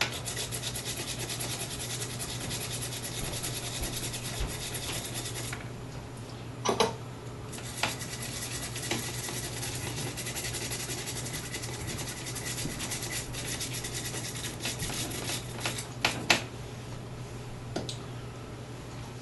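Small bristle brush scrubbing flux cleaner over freshly soldered connector joints on a circuit board: quick scratchy strokes that pause briefly about six seconds in, then carry on until a couple of knocks near the end. This is the board being cleaned of flux residue after soldering.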